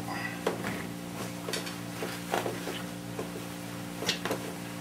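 A few scattered light metallic clicks and knocks of hand tools and bolts being handled while the oil pump is fitted to the engine block, with a pair of clicks near the end, over a steady low hum.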